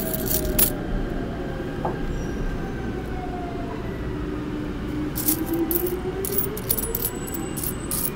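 Subway train running, with a steady low rumble and an electric motor whine that rises in pitch midway. Loose metal coins clink against each other briefly at the start and in quick runs through the second half as the pile is handled.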